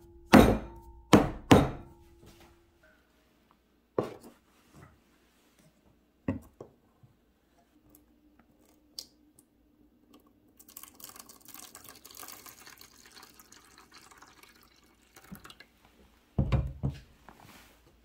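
Metal cake pans clanking and ringing briefly as a batter-filled pan is set down inside a larger pan, then a few single knocks. In the middle, hot water is poured from a kettle into the outer pan for about four seconds. Near the end comes another cluster of clanks as the pans are adjusted.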